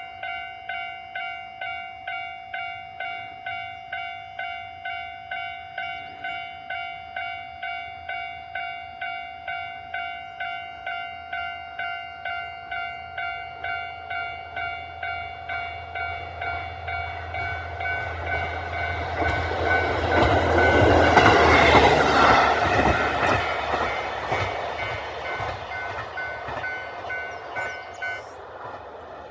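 Japanese level-crossing alarm ringing its electronic 'kan-kan' bell, about two strikes a second, until it cuts off about a second before the end. A KiHa 40 diesel railcar approaches with a rising low engine drone and passes over the crossing about two-thirds of the way through; its wheel and rail noise is the loudest part before it fades away.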